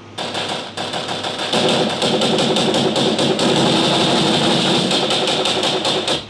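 Playback of a layered sound-effect mix: a dense, noisy bed with many rapid knocks and clatters in it. It grows louder about a second and a half in, then cuts off abruptly.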